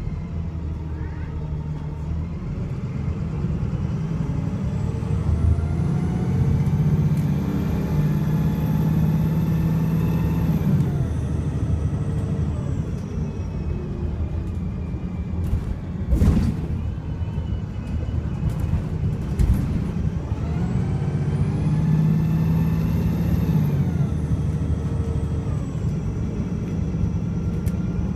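VDL SB200 bus's diesel engine, misfiring, driven hard through its Voith automatic gearbox. It accelerates twice, each time with a high whine climbing steeply in pitch, then falling away as it eases off. Two sharp knocks come about midway.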